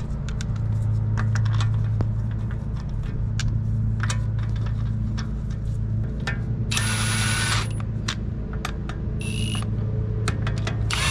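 Wheel lug bolts and a socket clicking and rattling as the bolts are threaded into the hub by hand, over a steady low hum. A short loud whir comes about seven seconds in, and a briefer one shortly after.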